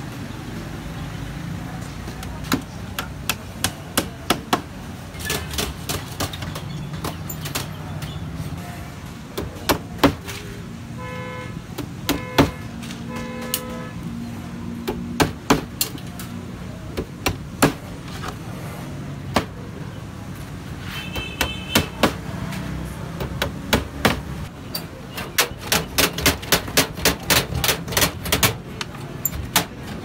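Hammer tapping nails to fix welded wire mesh onto a wooden cage frame: sharp metallic strikes and clicks, with a fast run of about four a second near the end. Around the middle a horn gives three short toots over a low steady hum.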